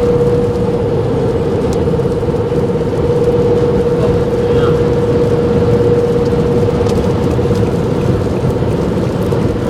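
Steady road and engine noise inside a car cruising on the highway, with a constant hum running through it.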